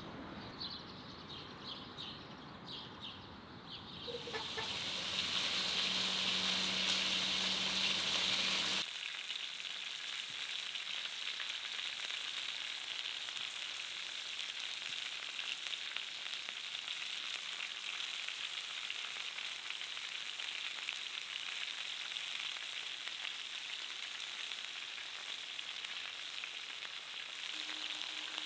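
Lamb chops and vegetables frying on a hot saj, a wide shallow steel pan, with a steady sizzle that comes in strongly about four seconds in and carries on evenly.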